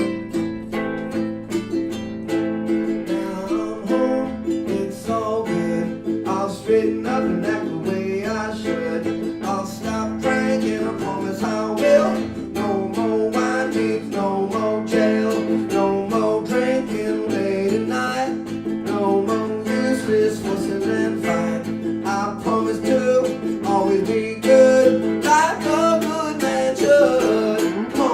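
Live acoustic song: a strummed acoustic guitar played in a steady rhythm, with a singer's voice over it.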